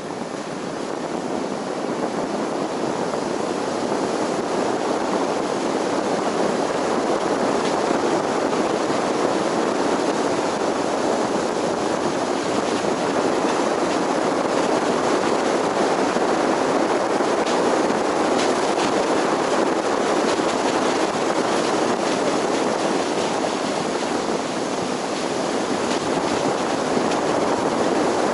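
Steady rushing road and tyre noise from a car being driven, growing louder over the first couple of seconds and then holding even.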